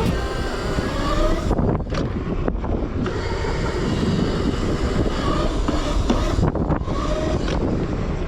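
Razor MX650 electric dirt bike, converted to a 72-volt setup, being ridden: the electric motor and drive whine rises and falls in pitch with the throttle, over steady rumble and wind noise.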